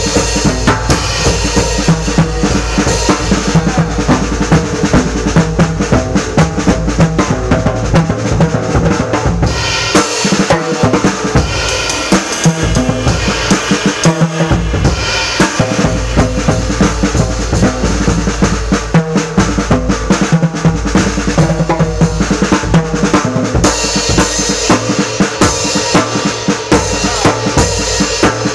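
Jazz drum kit played with sticks in a busy, continuous drum solo: snare, bass drum and ride and crash cymbals struck in quick strokes.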